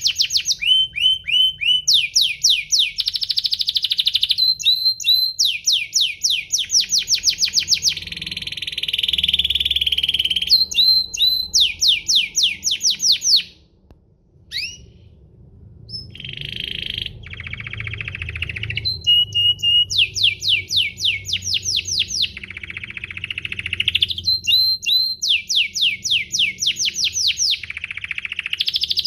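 Domestic canary singing: long runs of fast repeated notes and rolling trills, broken by a short pause about halfway through before the song picks up again.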